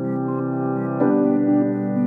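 Background music: sustained keyboard chords with short repeating notes, growing louder and changing chord about a second in.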